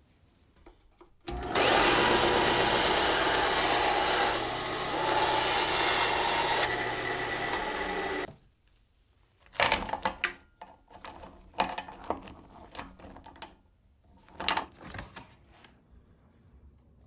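WEN 3939T 9-inch band saw switched on and running for about seven seconds with a steady motor hum while cutting a hard twisted dog chew, then cutting off suddenly. A few scattered clicks and rustles follow.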